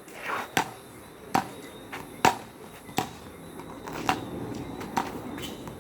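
Road tennis rally: a stripped tennis ball knocked back and forth with wooden paddles and bouncing on the road surface, with six sharp knocks about a second apart.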